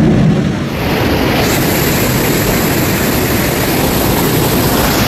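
Fast-flowing muddy flash-flood water rushing in a torrent: a loud, steady roar of water that turns brighter and fuller less than a second in.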